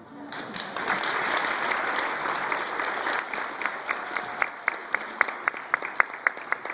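Audience of schoolchildren applauding in a gymnasium as a strings piece ends. The dense applause thins out about four seconds in to separate loud claps, about four a second.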